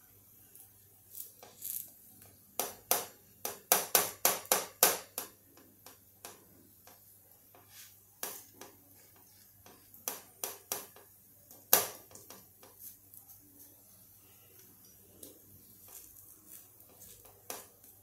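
Wet fingers patting and pressing thalipeeth dough flat on a tava griddle, each pat a short soft slap. A quick run of about six pats comes a few seconds in, with scattered pats later and the sharpest one about halfway through.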